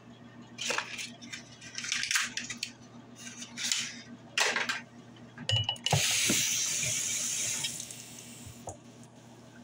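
Rustling and clicking of a toothbrush and toothpaste tube being handled, then a bathroom sink tap running for about two seconds before it fades off.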